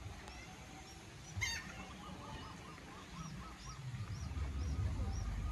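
Birds calling: a rapid run of short repeated calls, joined by a higher call repeating about twice a second. Under them is a low rumble that grows louder near the end.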